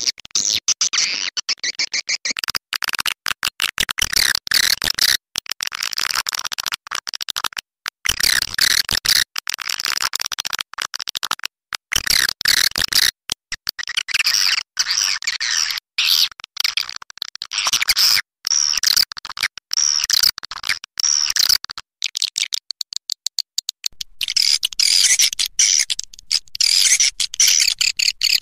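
Dense chorus of swiftlet calls: rapid, overlapping high chirps and twitters, chopped by many brief gaps. This is a swiftlet-house lure recording of the roosting call ('panggil inap').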